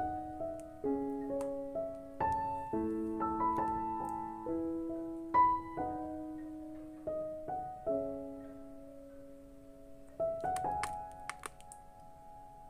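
Background piano music: a slow melody of single notes and chords, each note struck and left to fade.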